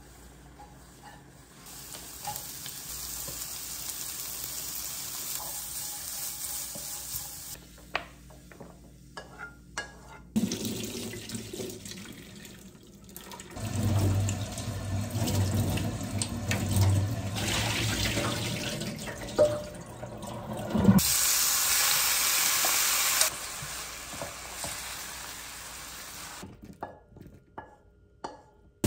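Tap water running into a stainless-steel sink and through cooked glass noodles held in a mesh strainer, as they are rinsed in cold water. The rush of water starts about a third of the way in and stops shortly after the middle.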